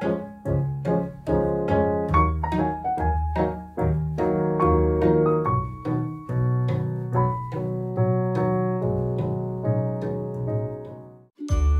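Background piano music, a steady run of struck notes over a bass line. It stops briefly near the end, and a new, louder tune begins.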